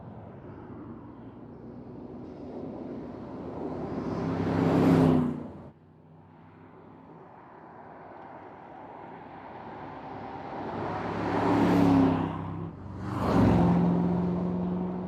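Mercedes-AMG GT's 4.0-litre twin-turbo V8 driving past three times, each pass swelling to a loud peak and fading. The first pass cuts off abruptly about six seconds in.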